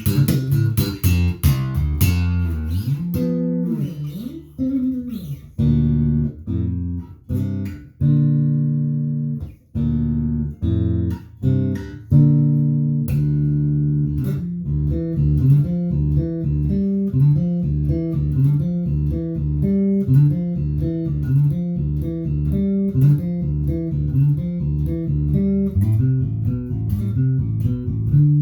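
Harley Benton JJ-55 OP electric bass with DR Pure Blues nickel strings, played through a small amp. There are a few sliding notes, then longer held notes, then from about halfway a steady run of short, quick notes.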